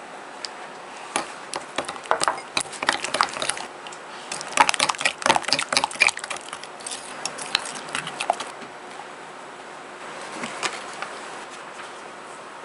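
Metal spoon stirring melted chocolate and egg batter in a glass bowl: rapid clinks and scrapes against the glass for several seconds, then a few scattered taps later on.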